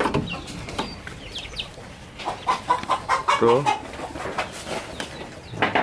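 Chickens clucking with short, high, curving calls throughout, and a brief low call about three and a half seconds in.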